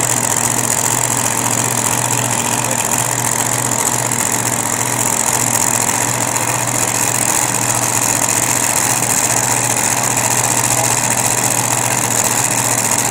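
A vehicle engine idling steadily, with no revving or change in pitch.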